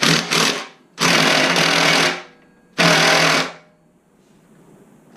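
Cordless impact wrench hammering in four bursts, two short then two longer, on a saddlebag support bolt that will not break loose. The bolt is held tight, which the owner puts down to Loctite.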